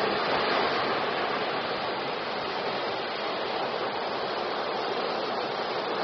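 Ocean waves breaking and washing in: a steady rush of surf that is loudest right at the start.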